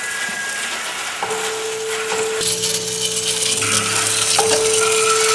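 Electric model train set driving musical toys through reed switches: a busy mechanical rattling with a steady held tone that comes in about a second in and a low hum added about halfway through.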